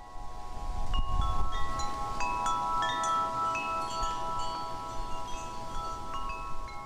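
Chimes sounding as an intro effect: a held cluster of ringing tones with many bright chime strikes tinkling over it at scattered pitches, above a low rumble. It fades in at the start.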